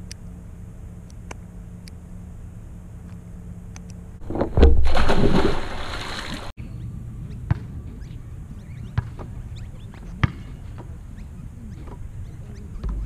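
Swimming-pool water sloshing and splashing against a camera held at the surface, a loud surge of about two seconds starting about four seconds in and cutting off suddenly. Around it, faint outdoor background with a few single sharp knocks.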